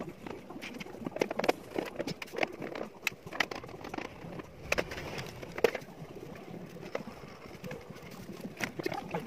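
Irregular clicks and knocks of a CRT television's plastic rear housing being handled and pulled off as the set is taken apart.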